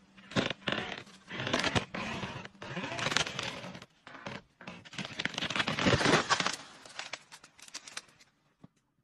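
Dead tree's wood cracking, splintering and crashing as an elephant pulls it down, a run of sharp snaps and crackling that is loudest about six seconds in and dies away about eight seconds in.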